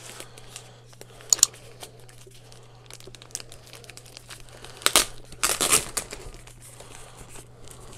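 Protective wrapping crinkling and rustling as it is unfolded and pulled off a small boxed device, with a few sharp, loud crackles about a second and a half in and again around five to six seconds in.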